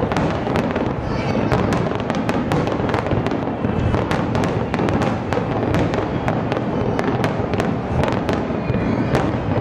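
Aerial firework shells bursting in rapid succession: many overlapping booms and sharp cracks with no pause between them.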